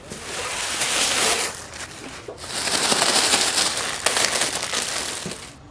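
Tissue paper and plastic packing crinkling as hands rummage through a cardboard box. It comes in two long spells with a short lull about two seconds in, and stops suddenly near the end.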